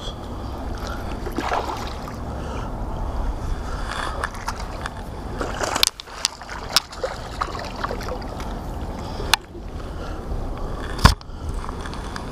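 Wind rumbling on an action camera's microphone while a hooked largemouth bass splashes at the reedy water's edge as it is landed by hand. A few sharp knocks cut through, the loudest near the end.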